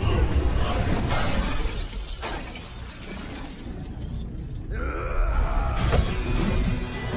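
Fight-scene film soundtrack: dramatic background score with a loud crash effect about a second in that dies away over a few seconds, and a held high note near the end.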